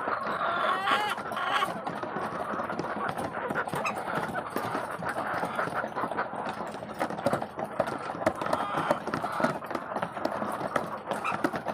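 Laying hens in their pen during egg collection: a dense run of light clicks and taps, with a hen's short rising call about a second in.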